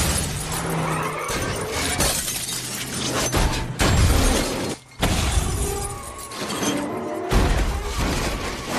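Film car-crash sound effects: a van slamming into parked cars and rolling over, with glass shattering and several loud crashes, over music.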